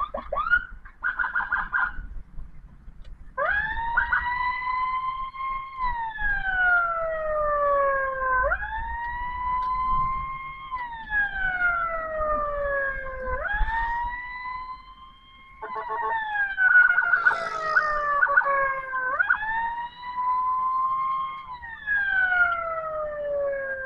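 Ambulance siren on a wail: each cycle rises quickly and then falls slowly over about five seconds, over and over. A few short rapid blasts come first, and around the middle a second falling tone overlaps the wail.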